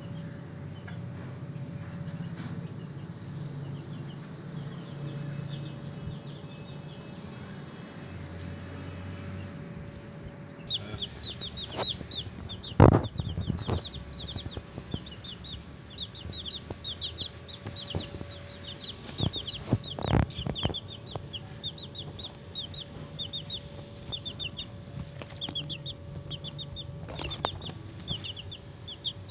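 Baby chickens peeping: short, high cheeps repeated several times a second, faint at first and then loud and continuous from about a third of the way in. A few sharp knocks stand out near the middle.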